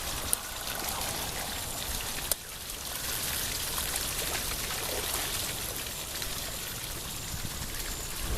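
Steady rushing of water, with two sharp clicks about a third of a second and two seconds in.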